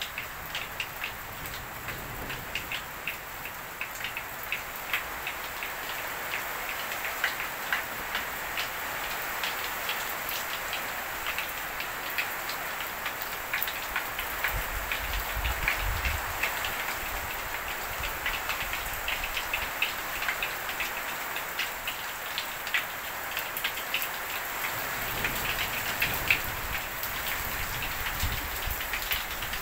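Rain and hail pelting a porch roof: a steady hiss thick with sharp ticks of stones striking. Twice a low rumble swells underneath.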